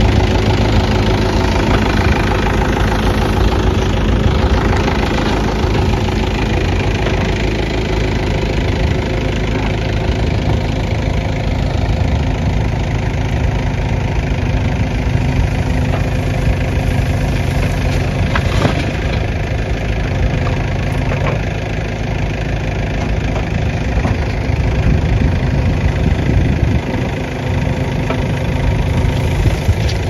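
Diesel engines of a JCB 3DX Plus backhoe loader and a tractor running steadily while the backhoe digs rubble and loads it into the tractor's trolley.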